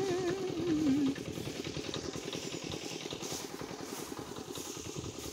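Electric-motor-driven paddy threshing machine running with a rapid, even pulsing clatter. A wavering tone falls in pitch through the first second.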